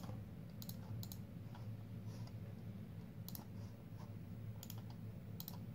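Computer mouse and keyboard clicks: about five sharp clicks, several in quick pairs, over a low steady hum.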